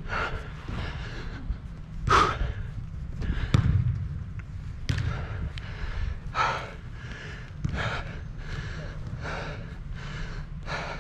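A tired soccer player breathing hard right at the microphone, a rough breath about once a second, with a few sharp knocks in between.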